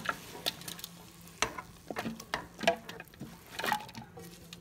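A spatula scraping freshly stir-fried vegetables out of a pan into a glass bowl: irregular scrapes and light clicks as the vegetables tumble in, dying away near the end.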